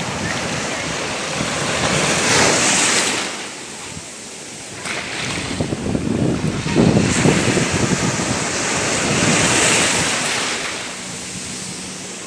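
Ocean surf: waves breaking and washing up the shore in repeated swells of hiss. There is a lull about four seconds in, and the loudest surge comes about seven seconds in.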